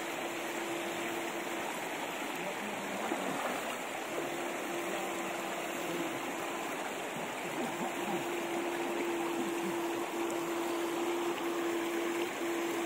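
Shallow river water running over rocks, with a steady electrical hum that cuts in and out several times as the electric fishing rig is switched on and off.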